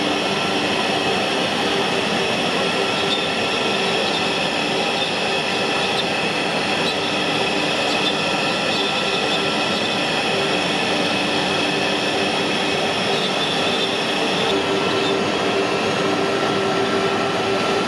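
CNC router spindle running steadily while its tapered carving bit cuts relief into MDF: a continuous whine over a steady machine noise.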